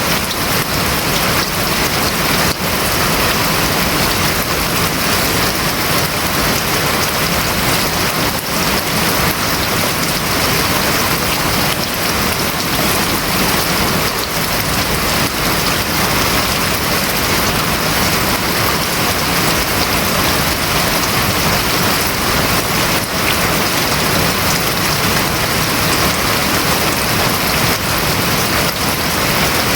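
Rain falling steadily on a house roof, a dense, even patter with no let-up.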